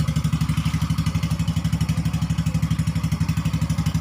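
Yamaha X-Ride 125 scooter's single-cylinder engine idling steadily with a fast, even pulse.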